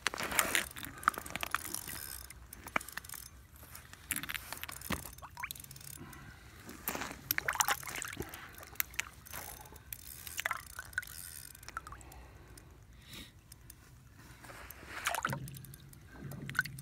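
Water splashing and sloshing at an ice-fishing hole as a lake trout is pulled up through it, with scattered clicks and knocks of ice.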